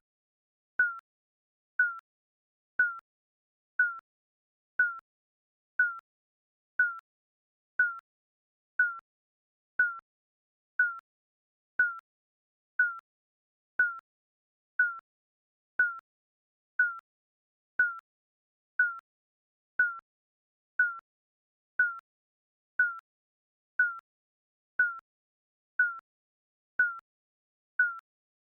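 Digital countdown timer beeping once a second: short, mid-pitched electronic beeps, each with a sharp start, a slight drop in pitch and a quick fade.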